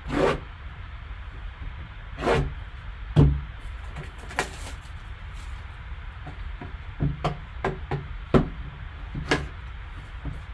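A shrink-wrapped trading-card box being handled, turned over and set down on a table: a series of short rustles and knocks, the loudest a thump about three seconds in.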